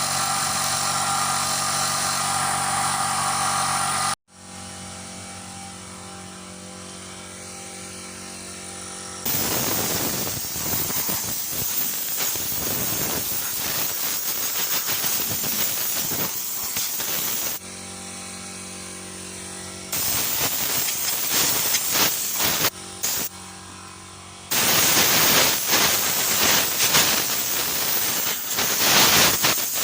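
A motor running steadily while loud hissing jets of high-pressure spray start and stop in bursts, blowing grass out of and washing down a lawnmower.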